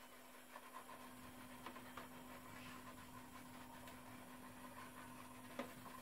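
Near silence: a faint steady hum with a few soft clicks, and one sharper click near the end.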